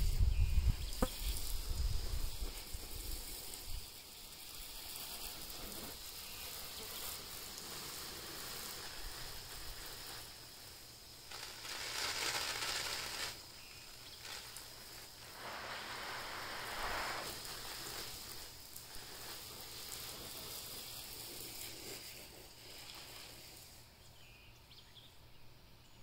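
Outdoor rural ambience with wind: the microphone is buffeted by wind at first, then a steady hiss of wind in the trees swells twice for a second or two around the middle and fades toward the end.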